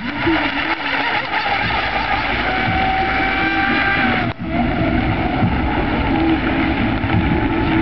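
ML Boatworks GP335 Sport 20 RC hydroplane running at speed, its TP Power 4082 brushless electric motor and propeller giving a steady high-pitched whine over a continuous hiss of spray. The sound breaks off for an instant just past halfway.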